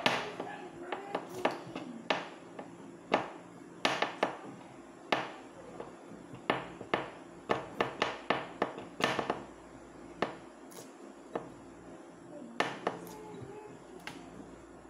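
Irregular sharp clicks and knocks, some in quick runs, from a small metal gas stove burner part being handled and worked on a tabletop.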